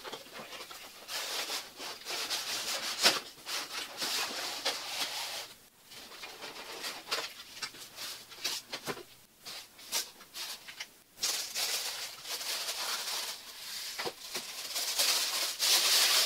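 Unboxing noises: cardboard box flaps and styrofoam packing blocks handled and slid apart, with scattered scrapes and clicks, then thin wrapping rustling and crinkling as it is pulled off a die-cast model car, loudest near the end.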